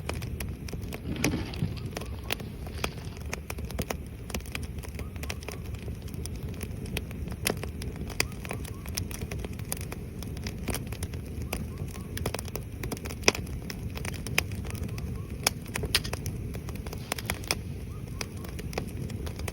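Oak firewood burning, with irregular crackles and sharp pops over a steady low rush of flame.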